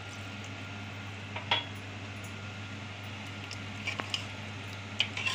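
Water poured from a glass into a steel pot of mutton curry, then a metal ladle stirring it, with a few sharp clinks against the pot.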